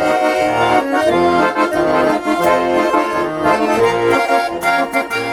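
A bayan and a garmon playing together: an instrumental introduction to a song, with sustained reed chords over a pulsing bass accompaniment.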